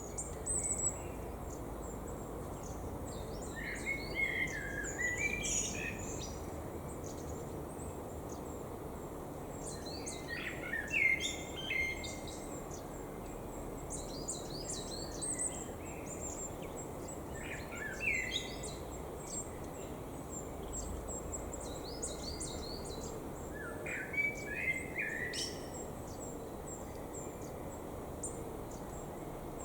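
A songbird sings four short, warbling phrases, spaced about six or seven seconds apart, over a steady background hiss. Faint, high chirps come through in between.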